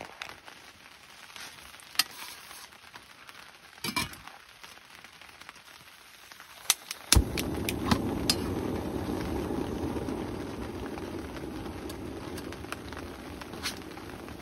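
Portable gas stove: a few sharp clicks, then the burner lights abruptly about seven seconds in and runs with a steady rushing hiss that slowly eases off.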